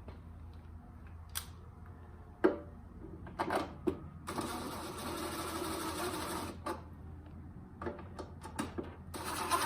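Cordless power driver running for about two seconds, driving in a screw that fastens the replacement recoil pull-starter to the Tecumseh engine, with clicks and knocks of metal parts being handled before and after.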